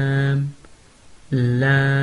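A man's voice recites the Arabic letter name "laam" in a drawn-out, chanted tone at a steady pitch, the way letters are drilled in a Noorani Qaida lesson. One long "laam" ends about half a second in, and after a short pause another begins.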